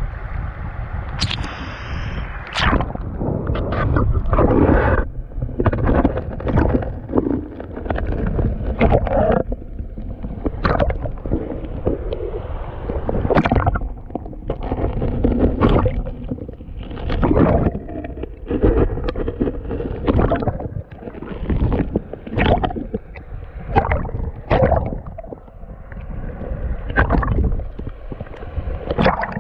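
River water gurgling and sloshing against a GoPro held in the current, heard muffled with the highs cut off. It comes in irregular surges about every second or two.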